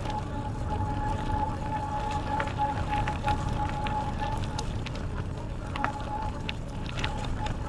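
Bicycle ride on a trail: a steady low rumble of tyres and wind, scattered sharp ticks and clicks, and a steady high-pitched whine that wavers slightly in pitch.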